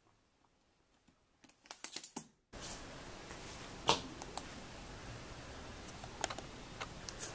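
Handling noise: a few light clicks and taps. About two and a half seconds in, a steady hiss starts abruptly, with scattered sharp clicks as a smartphone is picked up from the bedding.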